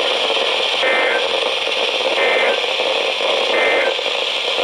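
Emergency Alert System end-of-message tones from a radio receiver: three short warbling digital data bursts about a second apart over steady radio static, signalling that the storm warning broadcast is over.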